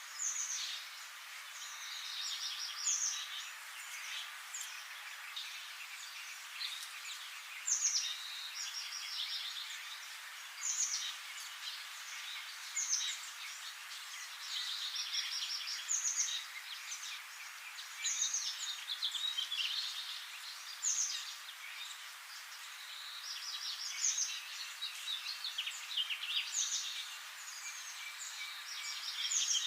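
Small birds singing, with short, high chirping phrases repeating every second or two over a steady background hiss.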